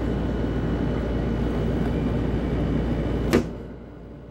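Heavy rain pouring down steadily, a dense even hiss. About three-quarters of the way in a single sharp knock sounds, after which the rain is much quieter.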